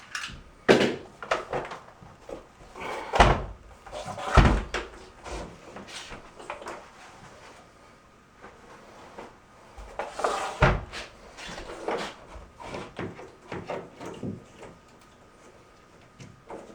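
A series of irregular knocks and clunks from handling work gear, the loudest about three, four and a half and eleven seconds in.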